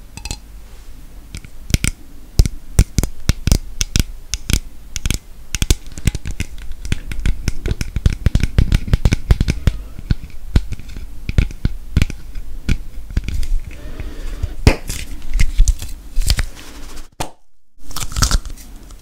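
Fingernails tapping and scratching on a metal aerosol can of spray cream, close to the microphone: a fast, irregular run of sharp taps. The sound drops out briefly near the end.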